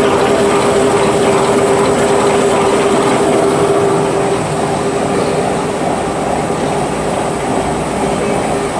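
XY-OQ-7000C high-speed dental bib making machine running: a steady mechanical running noise with a constant hum through it. The noise eases a little about four seconds in.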